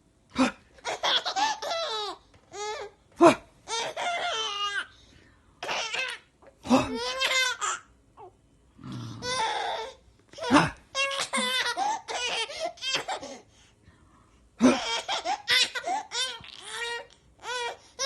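Baby laughing in repeated bursts, with short pauses between them.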